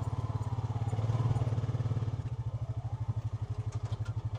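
Honda Pioneer 520 UTV's single-cylinder engine running with an even, rapid beat as it pulls in first gear on a rope tied to a half-broken tree. It swells about a second in, then eases after about two seconds: the tree is not giving way.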